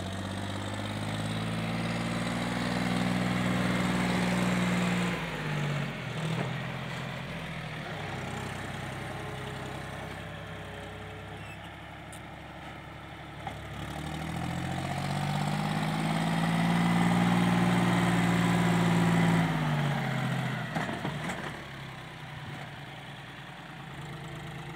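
John Deere 5050D tractor's three-cylinder diesel engine working under load as it pulls a loaded trailer of earth up a slope. The revs climb and are held high twice, each time for several seconds, then drop back.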